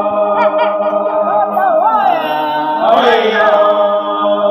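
A group of voices singing a cappella in chorus, several holding long steady notes under a wavering melodic line, with a new phrase starting with an upward slide about three seconds in.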